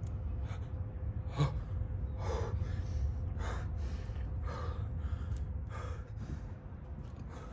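A young man gasping and breathing hard, heavy breaths roughly once a second, as he catches his breath. A steady low rumble runs underneath.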